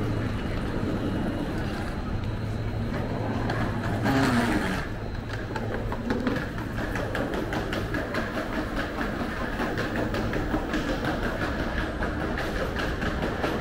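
Station hall ambience with a steady low hum, and a brief louder sound about four seconds in. After that comes a fast, even run of clicks from a wheeled suitcase rolling over the joints of a tiled floor.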